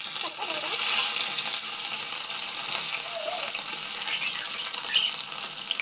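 Food deep-frying in a pan of hot oil: a steady, loud sizzle.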